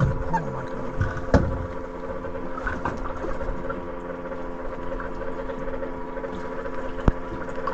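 Boat engine idling with a steady drone. A few sharp knocks come over it, one about a second and a half in and another near the end.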